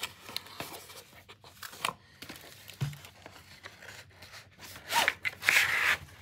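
A cardboard sleeve being opened and slid off a plastic caliper case: light rustles and taps, then a louder scraping rustle near the end.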